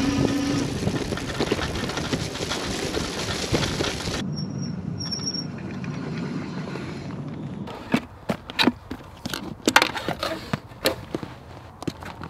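E-bike riding over a grassy track: a steady rush of wind and tyre noise that cuts off suddenly about four seconds in. After a quieter stretch, from about eight seconds in, there is a string of sharp clicks and rustles as the buckles and straps of a waterproof roll-top dry bag are undone and the bag is handled.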